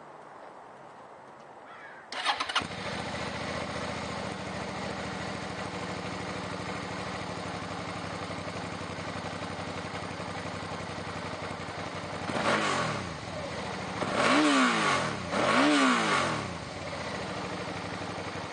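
2008 Suzuki V-Strom 650's V-twin engine started on the electric starter about two seconds in, cranking briefly and catching quickly, then idling steadily. Later it is blipped once lightly and then revved twice more strongly, each time falling back to idle.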